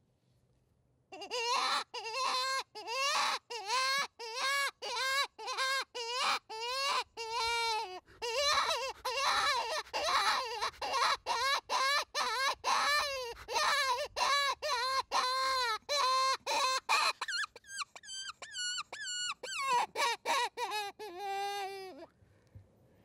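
Hand-blown predator call sounding a prey distress sequence: a long series of crying squeals, about two a second, each bending up and then down in pitch. The series starts about a second in and stops shortly before the end, with a run of higher squeals near the end. It is the wounded-prey sound used to lure bobcats and coyotes in.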